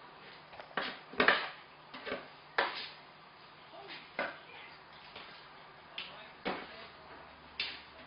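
Kittens playing on a tiled floor: irregular scrabbling of paws and claws on the tiles and knocks against a cardboard toy house, the loudest a little over a second in.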